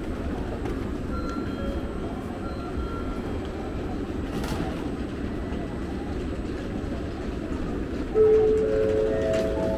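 Steady hum of a Shinkansen train standing at a station platform with its doors open, mixed with platform noise. Near the end a loud electronic chime of a few rising notes rings out.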